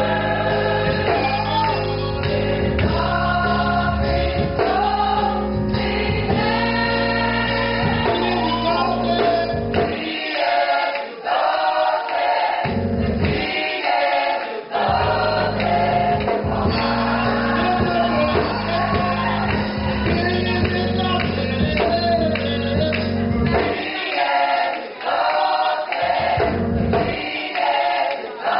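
Gospel choir singing over an instrumental accompaniment. The bass notes drop out briefly around the middle and again near the end while the voices carry on.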